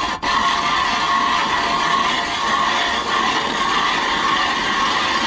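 Ice auger boring a hole through pond ice: a steady whine over the grinding of the blades cutting the ice, with a brief break just after the start.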